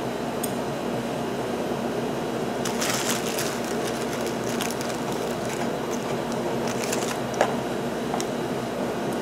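Light metallic clicks and scrapes of piston rings shifting in their grooves as a freshly ringed small-block Chevy piston is turned by hand, with one sharper click about seven seconds in. A steady hum runs underneath.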